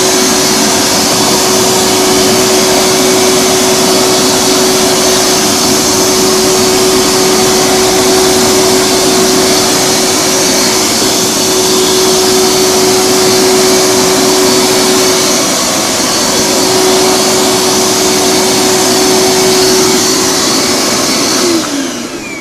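Hoover carpet shampooer running steadily with a loud whirring hum while it pumps up water. Near the end it is switched off and the pitch falls as the motor winds down.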